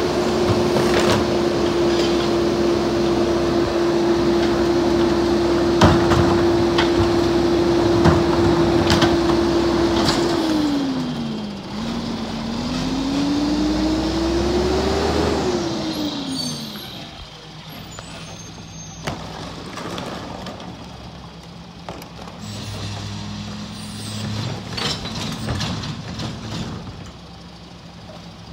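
Mack MR garbage truck's diesel engine held at a steady raised speed for about ten seconds while the McNeilus rear loader packs a load, with a few sharp bangs from the hopper. Then the engine drops, revs up as the truck pulls forward and falls back to a quieter idle, with clanks from a cart near the end.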